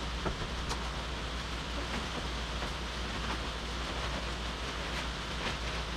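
Steady rain falling, an even hiss with a few faint sharp ticks scattered through it.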